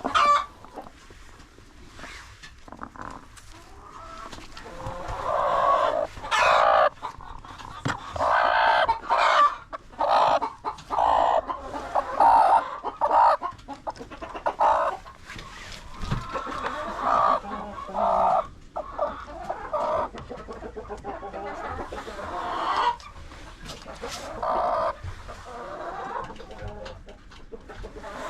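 Chickens clucking and squawking in many short, repeated calls, busiest in the middle stretch.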